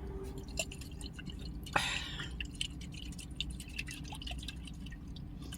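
Faint, small liquid sounds: the last of the chocolate milk sloshing and dripping in its bottle as it is shaken up, with one louder slosh about two seconds in. A steady low hum runs underneath.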